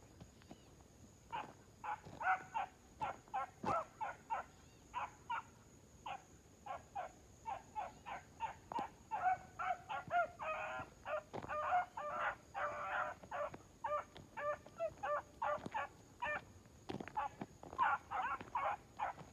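Several young dog pups barking in a fast, steady run of short high-pitched yips, three or four a second, their voices overlapping in the middle.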